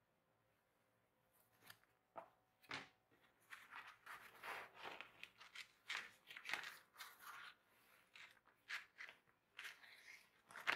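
Old seat padding and lining being pulled and torn out of an antique stool's leather-covered seat by hand: irregular rustling and tearing, starting about a second in, with a sharper tear or snap at the end.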